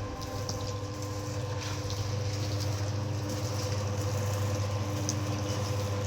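Electric coconut grating and milk-pressing machine running, its motor giving a steady hum over a rough grinding hiss.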